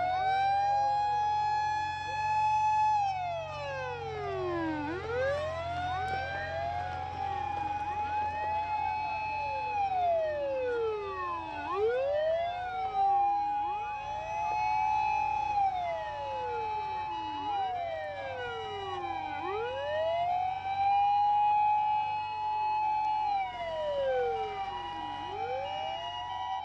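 Sirens of several Japanese fire-service emergency vehicles driving past in convoy, each wail rising quickly, holding, then sliding down every few seconds, overlapping at different pitches. Truck engines rumble under them in the first half, and near the end a two-tone hi-lo siren is heard steadily alternating.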